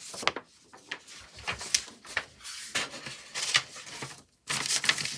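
Handling noise close to the microphone: irregular rubbing and scraping with a scatter of sharp clicks and knocks as objects are picked up and worked by hand.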